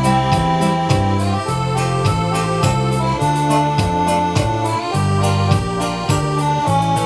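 Electronic keyboard playing a guarânia medley: a held, organ-like melody over a changing bass line and a steady drum beat.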